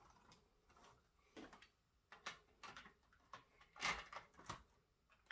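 Faint plastic clicks and knocks of a Lego train car being handled and its parts pressed back together, the loudest knock about four seconds in.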